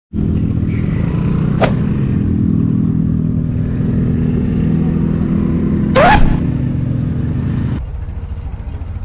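Motorcycle engine running steadily in slow traffic. About a second and a half in there is one sharp click, and about six seconds in a short sound rising in pitch, the loudest moment. Near the end the engine sound drops lower.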